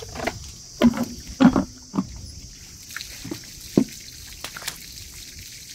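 A water hose running with a steady hiss, and a series of sharp knocks and scrapes, the two loudest about one and one and a half seconds in.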